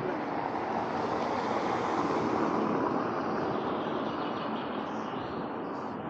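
A car passing on a cobblestone street, its tyre noise swelling to a peak about two seconds in and then fading away.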